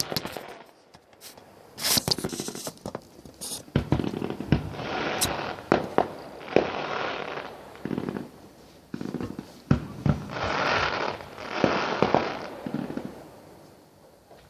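Fireworks going off: a string of sharp bangs, with bursts of crackling hiss about a second long in between.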